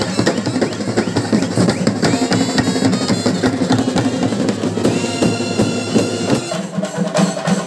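Kerala bandset playing: brass horns and clarinets carry the tune over loud, rapid drumming on side drums and a bass drum. A high held brass note comes in about five seconds in.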